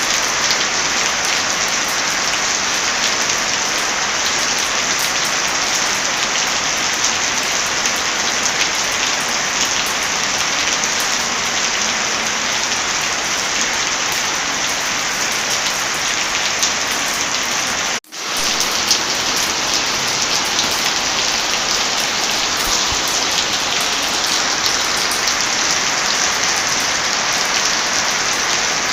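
Heavy rain falling steadily, with scattered sharp fireplace crackles mixed in. The sound cuts out for a split second about eighteen seconds in, then resumes.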